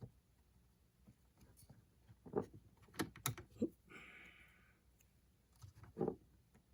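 Scattered light clicks and taps from handling a Spektrum DX6i transmitter's plastic case and small internal parts while it is being taken apart, with a short scraping rustle about four seconds in.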